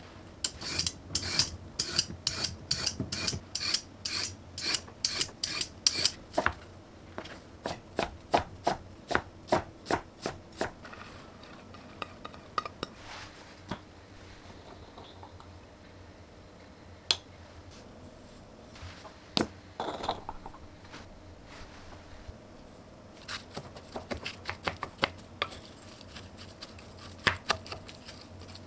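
A julienne peeler drawn down a raw carrot on a wooden cutting board in quick rasping strokes, about two to three a second, for the first six seconds, then a run of softer strokes. After that come a few scattered sharp clicks and knocks, and near the end a cluster of light scrapes.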